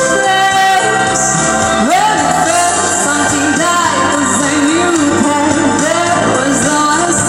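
A solo voice singing a pop ballad over instrumental backing, with vibrato on the held notes. About two seconds in, the voice swoops up to a higher held note.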